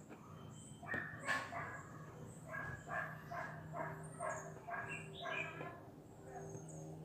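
A dog barking faintly, a quick run of about nine short yaps roughly half a second apart, over a steady low hum.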